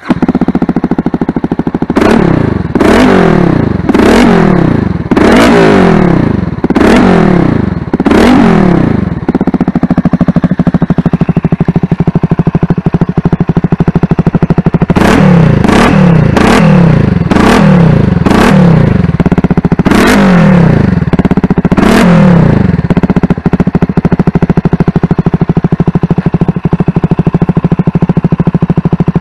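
A 2022 CFMoto 300SS's single-cylinder engine, breathing through a Yoshimura GP-Force exhaust with its sound baffle removed, starts up. It is revved in two bursts of quick throttle blips, each blip dropping straight back, and idles steadily between and after the bursts.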